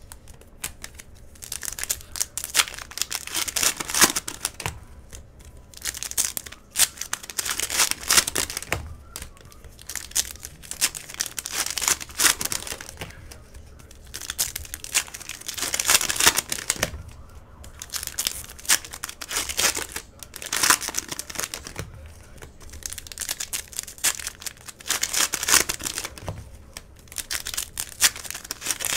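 Clear cellophane wrappers of Panini Prizm basketball cello multi-packs being torn open and crumpled by hand, in crinkling bursts every few seconds.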